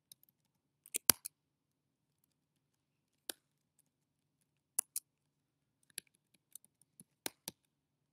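Computer keyboard keystrokes: sparse, sharp key clicks, some single and some in pairs or a quick cluster of three, spaced about a second or two apart.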